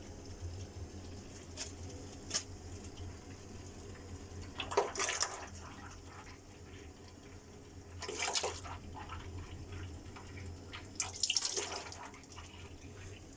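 Ford Expedition on a test drive, heard from inside the cabin: a steady low running hum, with three brief noisy rushes about five, eight and eleven seconds in.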